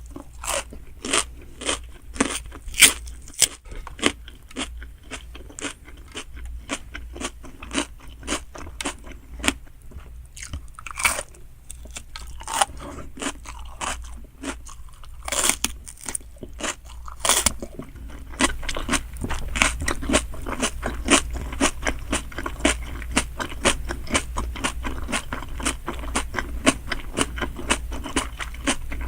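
Close-miked eating of giant salmon sushi: steady wet chewing and mouth clicks, with a few louder biting crunches in the first half. The chewing turns faster and denser about two-thirds of the way through.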